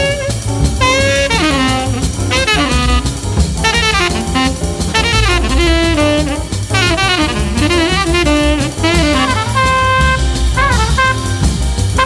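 Small-group jazz recording: a tenor saxophone solo in fast, running phrases over bass and a drum kit.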